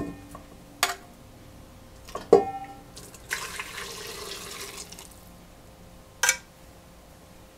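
Metal tongs clinking against the stainless inner pot of a rice cooker while pieces of stewed cartilage are lifted out. There are four sharp clinks, the loudest about two seconds in, each ringing briefly. In the middle comes a stretch of liquid sloshing and dripping in the pot.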